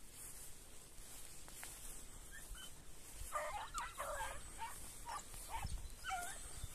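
Coursing dogs yelping and whining: a string of short, high, wavering cries from about halfway through.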